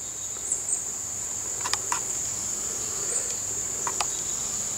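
Steady, unbroken high-pitched chorus of insects, likely crickets, droning on one pitch, with a few faint clicks.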